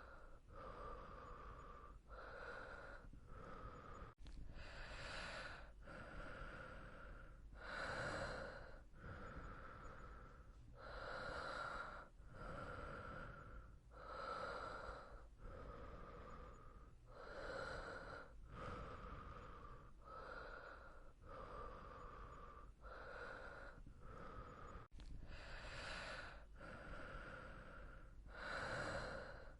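A person breathing slowly and evenly, in and out in a steady rhythm, with louder and softer breaths alternating at about one full breath every three seconds.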